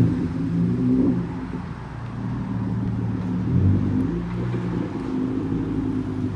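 Hyundai Genesis Coupe's engine and exhaust at low speed as the car rolls slowly across a parking lot, a steady low note with a brief rise in revs about three and a half seconds in.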